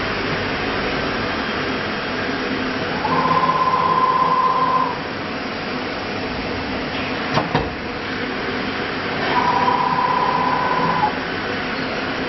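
Acctek AKM1325C CNC router running, with a steady mechanical hum. Twice a steady high whine rises over it for about two seconds each time, and there is a sharp click between the two.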